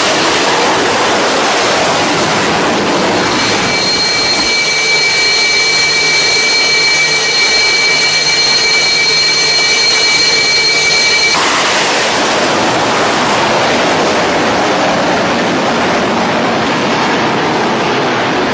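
Jet engine noise: a loud, steady rushing sound with a high whine running through it from a few seconds in until about the middle.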